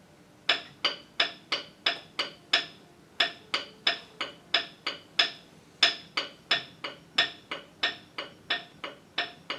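Rhythm sticks tapped in a steady rhythm pattern, sharp clicks about three a second, with two short pauses partway through.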